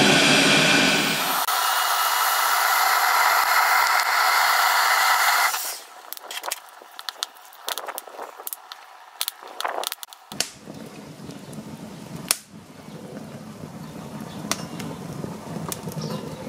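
Electric heat gun blowing hot air onto kindling wood, running steadily with a change in its tone about a second and a half in, then stopping about five and a half seconds in. After it, the wood crackles and pops as it catches fire, with a low steady rush of flame from about ten seconds in.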